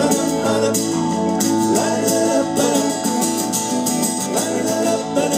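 Rock band playing live at a sound check: guitar and sustained chords with singing, running without a break.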